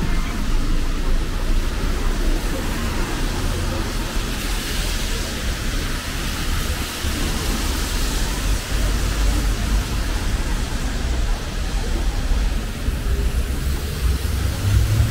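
Rainy street ambience: a steady hiss of rain and wet street noise over a low rumble, the hiss swelling somewhat in the middle.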